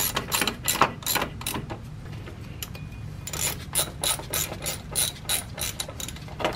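Hand ratchet wrench clicking at about four clicks a second while a cover's fasteners are run back in. The clicks come in two runs with a pause of about a second and a half between them, then one last click near the end.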